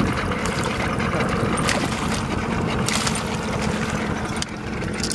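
Steady low rumble of an idling boat motor, with a few brief splashes from a hooked walleye thrashing at the surface beside the boat.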